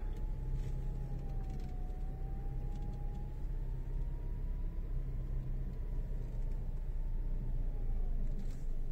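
2017 Toyota Auris heard from inside the cabin, running with a steady low hum as it reverses slowly, with a faint thin whine that slowly rises and falls in pitch.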